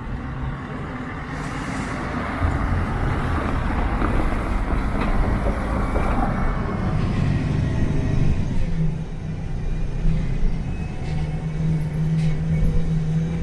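An articulated MAN Lion's City bus drives past, its engine and tyres growing louder over the first couple of seconds. From about eight seconds in comes the steady engine drone inside a moving MAN Lion's City A40 CNG bus, a low hum holding one pitch.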